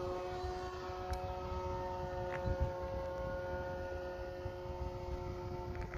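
Electric motor and propeller of an RC Mustang warbird (E-flite 525kv motor) whining steadily in flight, with wind rumbling on the microphone.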